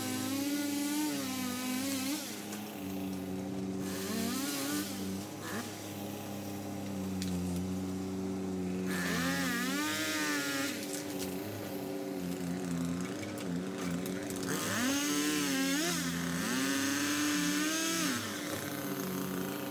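Gas chainsaw revving up and dropping back several times as it cuts through limbs, each cut bringing a rush of noise. An engine runs steadily underneath.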